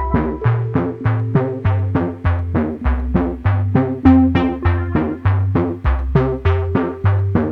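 Background music with a quick, steady beat, about four to five strokes a second, over a bass line that steps from note to note.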